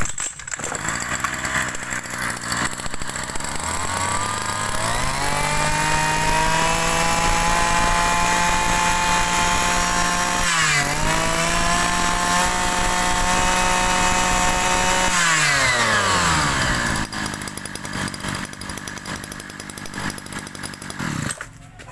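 Kawasaki TH brush cutter's small two-stroke engine running rough at idle, then revved up to full throttle and held there with one brief dip. It drops back to idle after about ten seconds and cuts out near the end.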